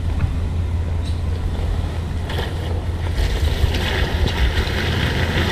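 Off-road Jeep engine running low and steady while crawling, with wind buffeting the microphone; a brighter hiss joins about three seconds in.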